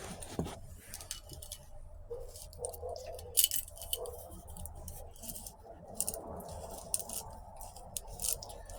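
Metal transmission parts handled and fitted together by hand, with scattered light clicks and clinks over a faint steady hum.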